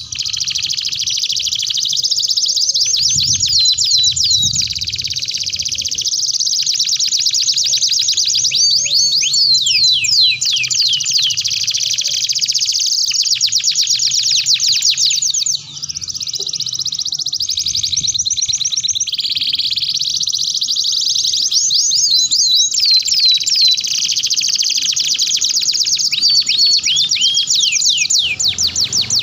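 Domestic canary singing a long, continuous song of rapid trills and rolls mixed with repeated down-sweeping whistled notes, high-pitched, with one short break about halfway through.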